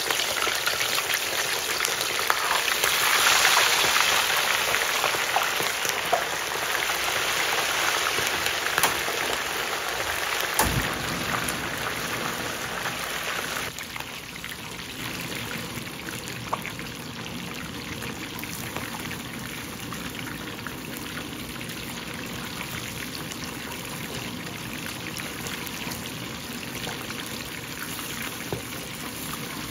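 Cornstarch-coated red snapper deep-frying in hot oil, the oil sizzling and bubbling hard around the fish. The sizzle is loudest a few seconds in and slowly eases, with a single short knock about ten seconds in.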